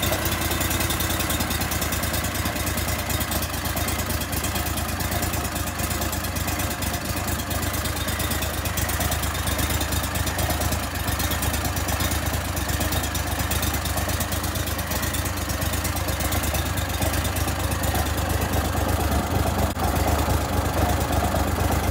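Briggs & Stratton Vanguard EFI 40 hp, 993 cc air-cooled V-twin on a Go-Devil surface-drive mud motor idling steadily at about 1,070 rpm. It is on a test run just after its first oil change, circulating the fresh oil.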